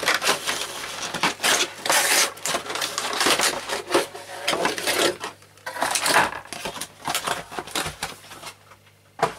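Packaging being handled: a cardboard box opened and a plastic tray of screwdrivers slid out and set down on a wooden bench, with rustling, crackling and irregular knocks. The handling dies down near the end, then a single sharp knock.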